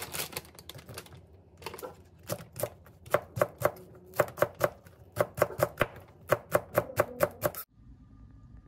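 Kitchen knife chopping green onion against a cutting board: a few scattered knocks, then a steady run of about four sharp strikes a second that stops abruptly near the end.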